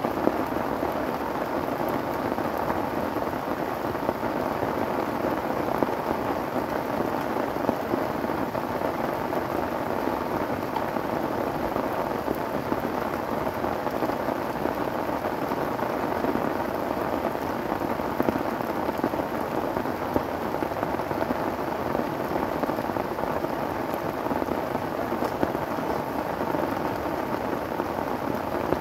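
Heavy rain falling steadily on a tarp shelter and the surrounding foliage, with scattered louder drops.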